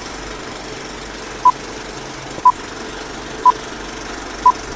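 Old-film countdown leader sound effect: four short, high beeps, one each second, over a steady projector-like hiss and whirr.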